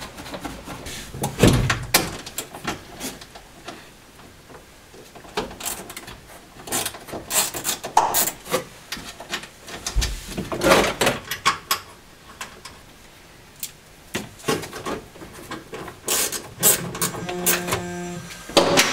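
Irregular clicks, knocks and rustles of plastic trim, switchgear and wiring from a 1980 Opel Kadett D's dashboard being handled and pulled apart by hand. Near the end a phone starts ringing in short repeated bursts.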